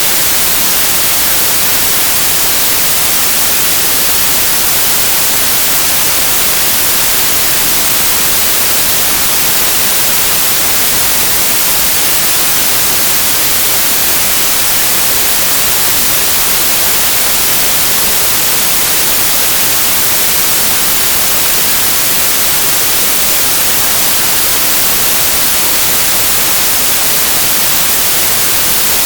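Loud, steady hiss of even noise like white noise or static, strongest in the high frequencies. It holds unchanged throughout, with no tones or separate events.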